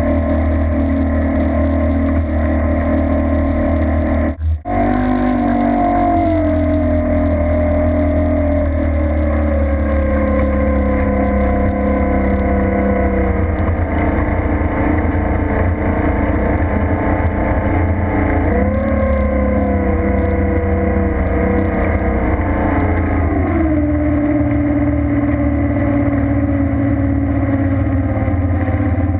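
Racing boat's engine running at low speed, its pitch easing down, rising briefly and dropping again as the throttle changes, with water and wind noise over an onboard camera. The sound cuts out for an instant about four seconds in.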